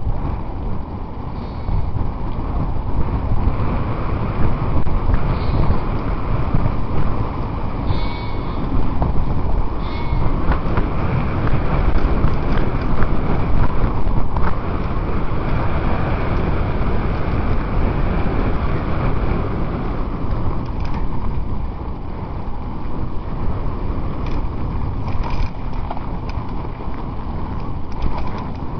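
Mountain bike on a fast descent: a continuous loud rumble and rattle of tyres and bike, with wind noise on the microphone. There are two short high squeals about eight and ten seconds in.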